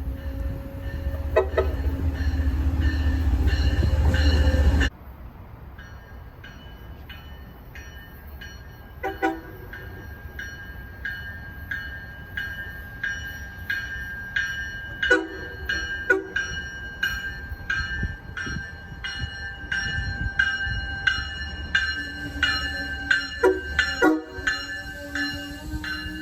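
Train passing with its horn sounding: a loud rumble under a low horn tone that cuts off suddenly about five seconds in. Then a series of short, irregular horn blasts with several tones, growing denser in the second half, with a long low horn note near the end.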